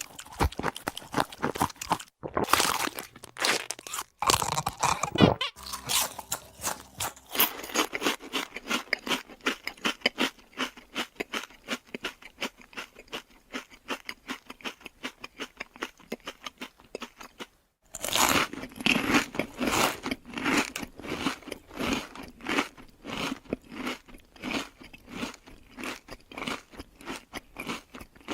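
Rapid, dense crunching, many sharp crunches a second, in separate runs broken by brief silent cuts about two seconds in and again near eighteen seconds.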